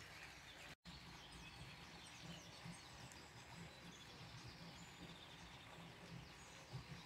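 Near silence: faint outdoor ambience with a few faint bird chirps, cut off by a brief dropout about a second in.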